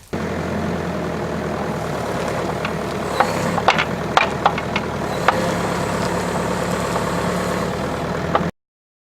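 Engine of a rented digging machine running steadily, with a few sharp metallic clanks in the middle; the sound cuts off suddenly near the end.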